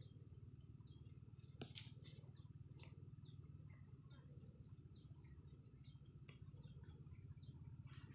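Quiet forest ambience: small birds giving scattered short, falling chirps over a steady high-pitched drone and a low rumble, with a few faint clicks about two seconds in.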